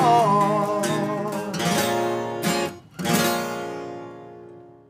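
Acoustic guitars strumming the closing chords of a country song; a final strummed chord about three seconds in rings out and fades away.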